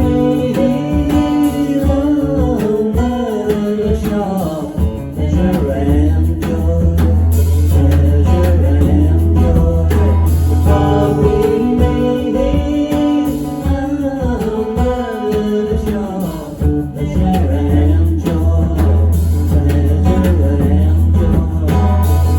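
A band playing a song with guitar and a singing voice over a steady low bass; the voice comes in for two stretches, with guitar between them.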